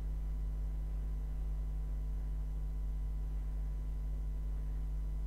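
Steady, even electrical hum, low-pitched with faint higher tones above it, unchanging throughout.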